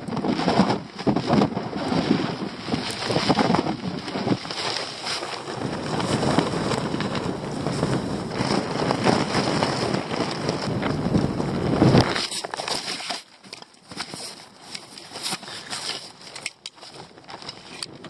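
Sudden storm wind gusting against the microphone while a collapsed nylon dome tent flaps and rattles around the camera. About twelve seconds in the noise drops abruptly to a much quieter rustle with a few knocks.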